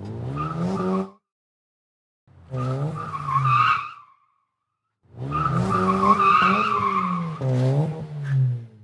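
Car engine revving with tires squealing, in three bursts with silence between them: a short one, one of about two seconds, and a longer one of nearly four seconds.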